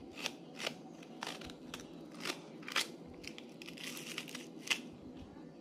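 A knife slicing through a fresh leek stalk held in the hand, about ten crisp crunching cuts at roughly two a second, the rings dropping into a stone mortar.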